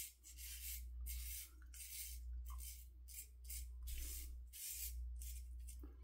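Double-edge safety razor scraping through two days' stubble in a run of short, faint strokes, the blade rasping on the whiskers.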